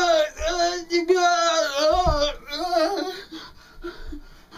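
A man's wordless, high falsetto singing, held notes that waver up and down for about three seconds before trailing off, with a soft thump about two seconds in.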